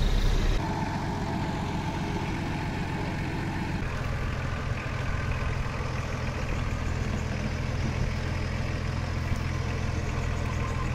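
Nissan Patrol Y60 4x4 engine running steadily at low revs, with the note settling slightly about four seconds in.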